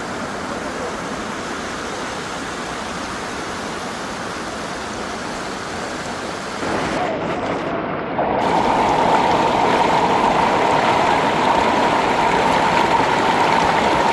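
Waterfall's rushing water, a steady roar that gets louder about halfway through.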